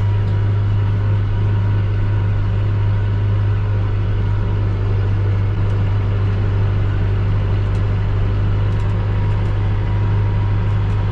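An engine running steadily: a loud, even, deep drone that neither rises nor falls.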